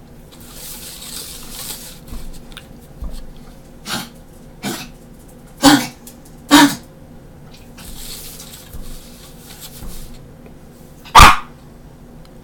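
Small dog, a chihuahua, yapping: a few short sharp barks, two close together about halfway through and the loudest near the end. Between the barks a pencil scratches along paper as lines are ruled.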